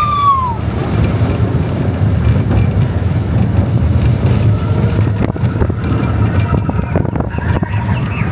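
Roller coaster train running along the track: a steady heavy rumble of wheels with wind buffeting the microphone, and a run of rattling knocks in the second half. A rider's high call fades out just at the start.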